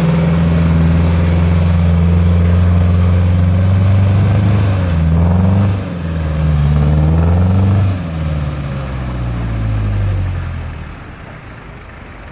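Land Rover Defender 110's engine working hard, held at high revs, then rising and falling in pitch a couple of times around the middle before dropping away near the end: the truck straining to climb a muddy slope and failing to get up it.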